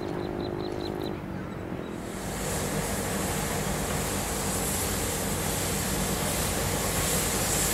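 Steady hiss with a low rumble that starts about two seconds in and slowly grows louder: a steam train hauled by two oil-fired steam locomotives approaching.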